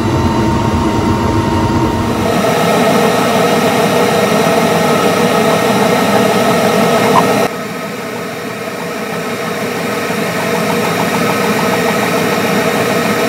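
Flux Beamo desktop CO2 laser engraver running an engraving pass over a wooden board: a steady mechanical whir from the machine's fans and moving laser head. The noise shifts abruptly twice, about two and a half and seven and a half seconds in.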